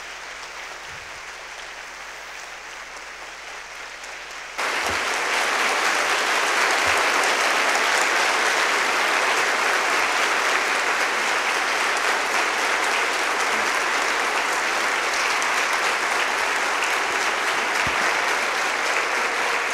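Large conference-hall audience applauding, a dense steady clapping that jumps abruptly louder about four and a half seconds in and holds there as a standing ovation.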